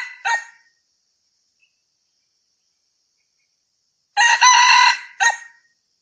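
Red junglefowl rooster crowing: the last short note of one crow right at the start, then a full crow about four seconds in, a loud stretch of about a second ending in a brief, separate clipped final note.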